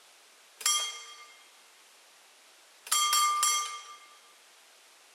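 Mechanical warning bell (Vorläutwerk) of a wire-operated railway crossing barrier being struck: one ring about half a second in, then three quick strokes around three seconds in, each ringing out and fading.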